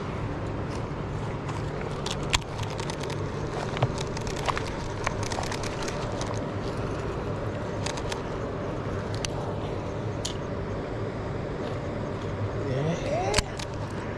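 Steady low background hum, like distant road traffic, with scattered sharp clicks and a short rising tone near the end.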